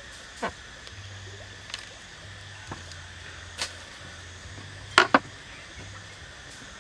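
Scattered light knocks and clicks from a plucked duck being cut and handled on a wooden board, the loudest a quick double knock about five seconds in, over a steady background hiss.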